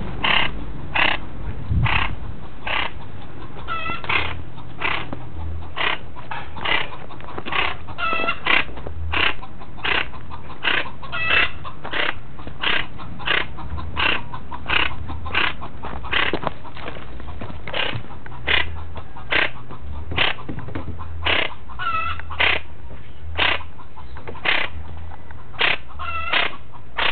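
Plain chachalaca giving short call notes over and over at a steady pace, about one and a half a second.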